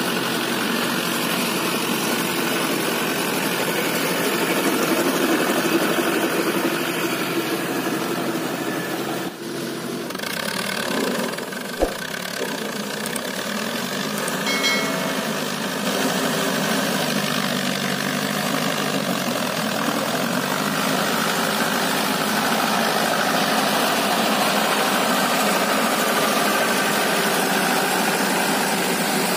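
Mahindra 575 DI tractor's four-cylinder diesel engine running steadily under load as it drags a rear implement through waterlogged paddy mud. The sound dips and cuts briefly about nine seconds in, a single sharp click comes about twelve seconds in, and the engine note sags and recovers near the end of the second third.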